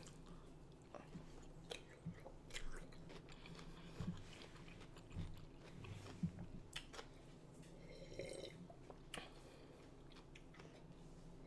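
Faint close-miked chewing, with scattered short wet mouth clicks and smacks. A brief throaty mouth sound comes about eight seconds in.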